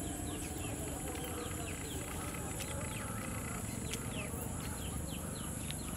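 Outdoor field ambience: a steady high-pitched insect drone, with many short falling chirps repeating a few times a second over a low rumble.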